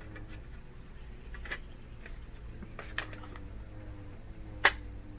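A few light clicks and taps from handling a cheese spread pouch and crackers, the sharpest near the end, over a steady low hum.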